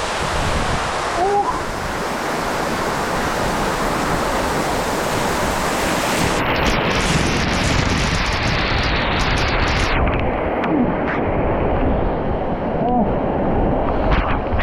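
Waterfall: water falling and rushing, a loud, steady rush. About two-thirds of the way through, the high hiss drops out and the sound turns duller.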